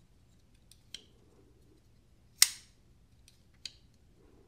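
McNees Mac 2 folding knife on phosphor bronze thick pivot washers, its blade flicked open with one sharp metallic snap as it locks out about two and a half seconds in. A few lighter clicks come before and after as the blade is handled.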